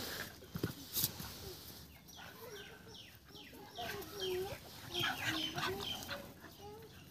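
Scuffling and a few sharp knocks in the first second, then a run of short, repeated animal calls, several a second, from about two seconds on, with two dogs play-fighting.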